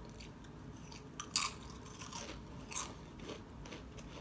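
Doritos tortilla chips crunching between the teeth as they are chewed: irregular sharp crunches, the loudest about a second and a half in.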